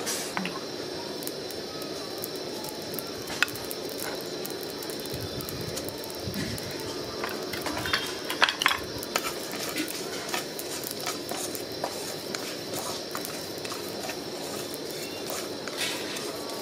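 Wooden spatula scraping and stirring dry whole spices in a nonstick frying pan, with scattered light clicks and rustling of the seeds over a steady hiss, as the spices are dry-roasted for masala. A few sharper ticks come about three and a half seconds in and again around eight to nine seconds.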